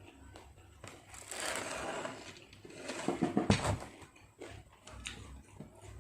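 Eating sounds close to the microphone: crunching and chewing. There is a noisy stretch about a second in and a louder burst of crunching about three seconds in, with a few small clicks afterwards.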